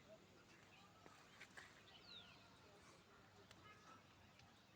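Near silence, with a few faint, short bird chirps that glide downward in pitch.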